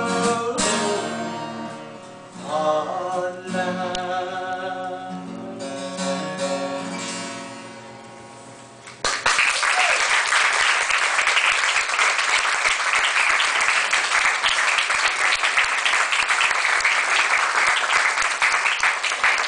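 The song's closing guitar chords are strummed a few times and fade out, then the audience bursts into applause about halfway through and keeps clapping steadily.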